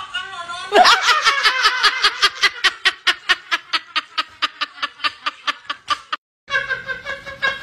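A person laughing in a long, rapid, even 'ha-ha-ha' run of about five bursts a second, which stops abruptly about six seconds in.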